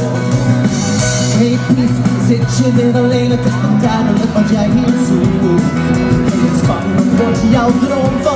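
Live pop music from a band with a steady beat and singing voices, at full volume.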